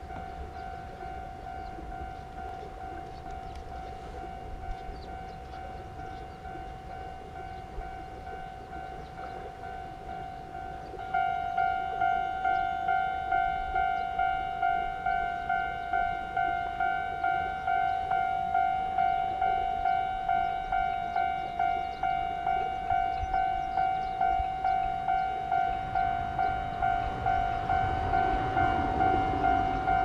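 Japanese level-crossing alarm ringing its rhythmic electronic 'kan-kan' tone, at first fainter; about eleven seconds in a second, much louder crossing alarm starts ringing with it. A low rumble builds near the end.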